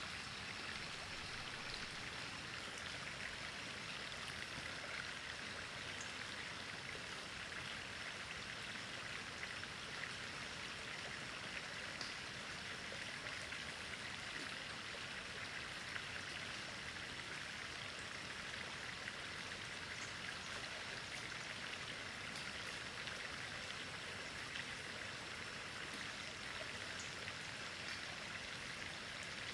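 Steady rush of stream water flowing, with a few faint scattered ticks.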